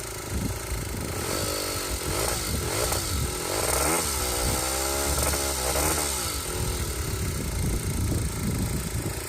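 Aprilia SR50's 50cc two-stroke engine idling unevenly, then revved in a few quick throttle blips about a second in. It is then held at higher revs for a couple of seconds before dropping back to idle.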